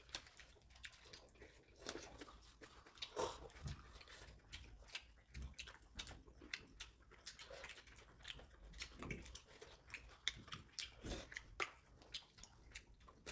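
Several people chewing and eating: faint, scattered small clicks, smacks and crunches of chewing, with chopsticks tapping now and then.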